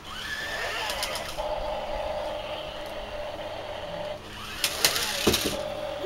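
Toy remote-control stunt car's electric motors whining: they wind up at the start, then run at a steady buzzy pitch. A few sharp knocks follow near the end.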